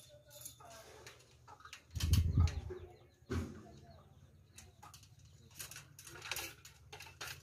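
Light knocks and clicks of metal pipes and an aluminium ladder being handled, with a heavier low thump about two seconds in and another just after three seconds.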